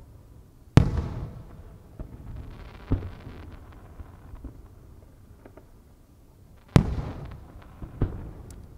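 Aerial firework shells bursting: two loud booms about six seconds apart, each trailing off in a rolling echo, with smaller bangs in between and a brief crackle after the first.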